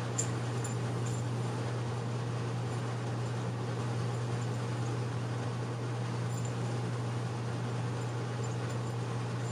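Steady low mechanical hum, with a few faint light ticks near the start and again about six seconds in.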